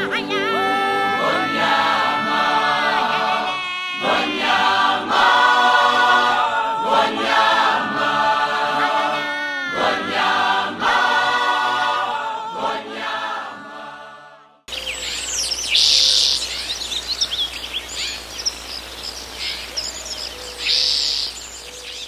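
Group singing with musical backing, cutting off abruptly about two-thirds of the way in. Birds then chirp and call over a steady low hum, with two brighter calls near the end.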